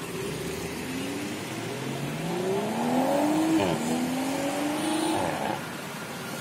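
BMW Z4 M40i's turbocharged straight-six accelerating hard away: the engine note climbs, drops briefly at an upshift just past halfway, climbs again through the next gear, then fades as the car pulls into the distance.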